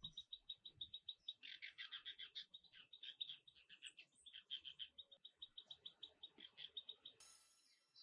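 Forest wildlife calling: a rapid, even train of short high notes, about eight a second, with fuller bird chirps over it about a second and a half in and again around three and four and a half seconds. Shortly before the end it breaks off into a faint hiss with different high chirps.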